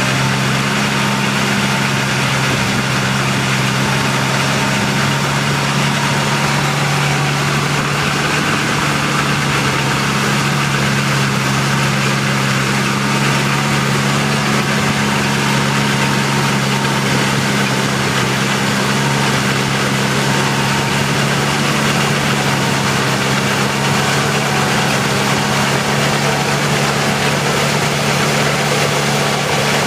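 Feucht OB Future II fallen-fruit harvester running at a steady hum as it drives along, its rotating pick-up brushes sweeping fallen apples and leaves into the machine.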